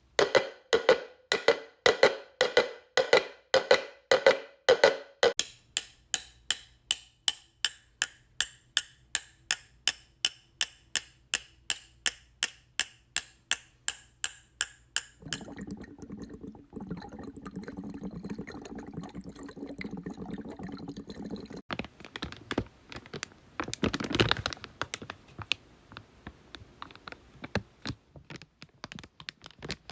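A sequence of Foley sound effects. First comes a run of regular knocks, then lighter even clicks about three a second over a faint low hum. After that, about halfway through, a stretch of steady rushing noise, and finally scattered taps with one louder burst.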